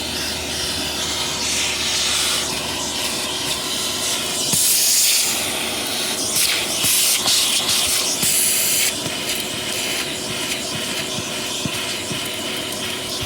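Vacuum cleaner running steadily on a car's carpet. Gritty debris clicks and crackles up the nozzle, and the airflow rushes louder in about four brief surges.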